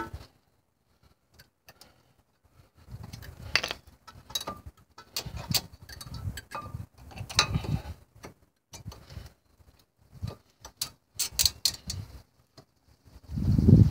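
Small metal clicks and clinks of a steel anti-rattle clip being worked into the groove of a 1995 Honda Civic's front brake caliper bracket. They come in scattered handling noises starting a couple of seconds in, with a louder low rumble near the end.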